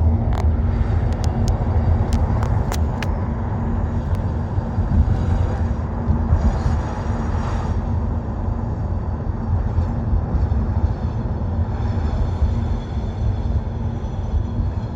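BMW E90 323i moving, with a steady low rumble and a constant hum, with a few sharp clicks in the first three seconds. The uploader suspects the abnormal noise from the left rear is a failing rear hub bearing.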